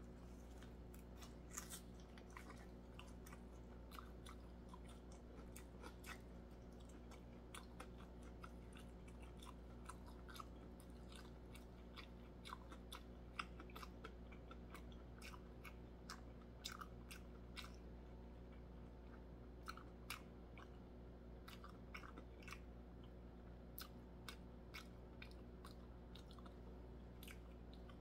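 Close-up chewing and biting of crisp fried fish, with frequent short crunches scattered all through, over a faint steady hum.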